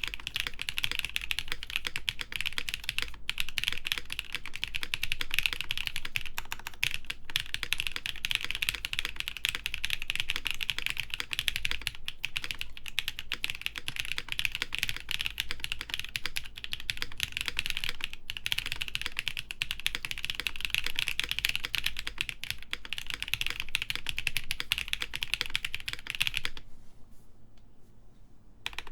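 Fast, continuous typing on a Gray Studio Think 6.5 v3 mechanical keyboard with lubed Designer Studio Graphite Gold switches on an FR4 plate and GMK keycaps: a dense run of keystroke clicks that pauses near the end.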